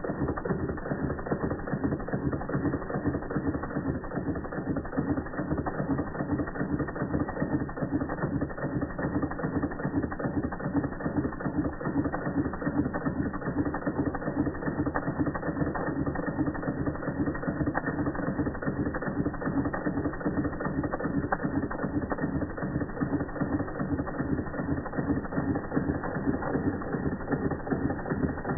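Doll dual-boiler toy steam engine (model 338/1, circa 1925) running steadily on its own steam: the single-cylinder horizontal engine and flywheel make a fast, even mechanical clatter.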